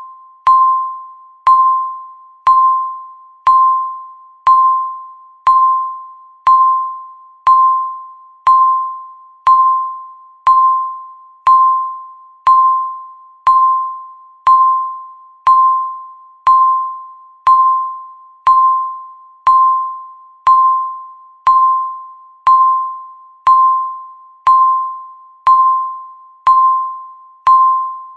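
Countdown timer beeping once every second: each beep is a single tone that starts sharply and fades away before the next, about 28 in a row.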